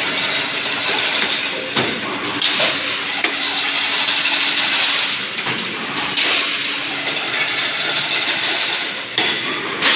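Fully automatic chain link fencing machine running, weaving wire mesh: a steady mechanical clatter with repeated knocks, and a higher hiss that rises and falls about every three to four seconds.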